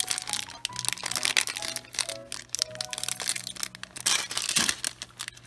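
A small plastic blind-bag wrapper crinkling and crackling as fingers work it open, over light background music.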